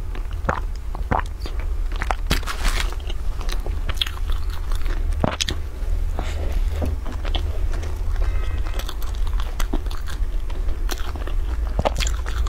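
Close-miked biting and chewing of a large crusty bread bun, with irregular crackling crunches from the crust. A steady low hum runs underneath.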